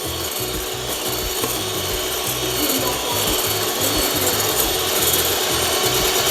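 Electric hand mixer whipping egg whites in a bowl: a steady motor hum with the beaters scraping and rubbing against the bowl.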